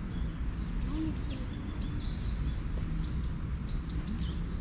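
Small birds calling: short high chirps that rise and fall, one or two a second, over a steady low rumble.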